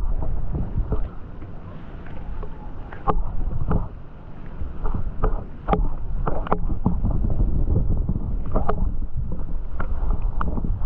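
Wind rumbling on the microphone and water washing around a small fishing boat, with scattered sharp knocks and clicks. It is quieter for a few seconds about a second in, then steady and louder.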